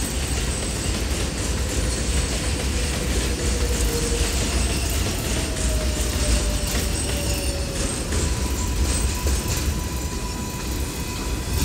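New York City Subway 4 train of R142-family cars pulling into an elevated station: a steady low rumble of wheels on rail, with a faint whine sliding slowly down in pitch midway and a thin steady tone from about eight seconds in.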